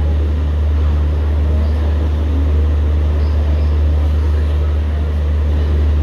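Steady low rumble and hum inside an LHB passenger coach of an Indian Railways express train, unbroken and even in level.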